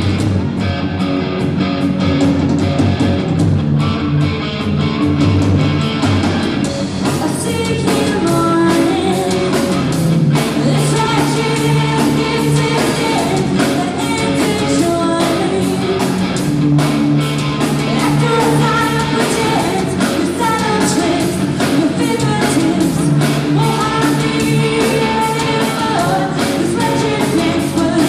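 A live rock band plays, with a woman singing lead over electric guitar and a drum kit. The cymbals and drums fill in fully several seconds in.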